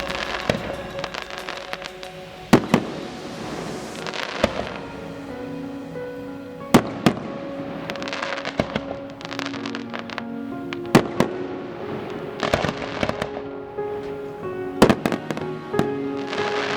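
Aerial fireworks going off: sharp bangs every second or few, some in quick pairs, with crackling between them. Music plays steadily underneath.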